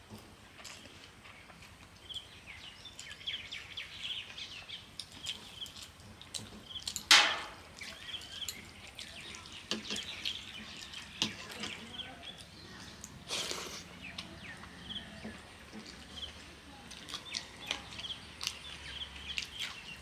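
Eating by hand: fingers squishing watery soaked rice in a metal plate, and chewing, heard as many small wet clicks. Short bird chirps repeat throughout. A loud sudden noise comes about seven seconds in, and a shorter sharp one about thirteen seconds in.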